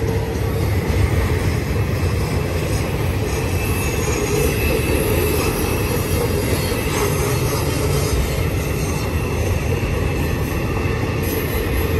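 Freight train cars carrying truck trailers and containers rolling past: a steady heavy rumble of steel wheels on the rails. Wheel flanges squeal in thin, drawn-out tones that rise and fade, the sound of the wheels grinding through a tight curve.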